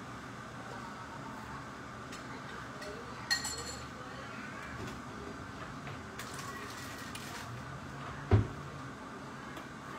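Kitchenware clatter: a single ringing clink a little over three seconds in and a dull knock near the end, over a steady background hum.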